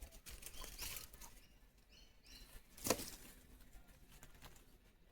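Scattered small clicks and knocks, the loudest a single sharp knock about three seconds in, with a few short high bird chirps just before it.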